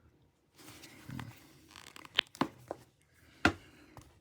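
Plastic opening pick scraping and clicking against an iPhone 7's screen edge and frame as the display is pried up against its adhesive. A short scrape, then several sharp clicks, the loudest about three and a half seconds in.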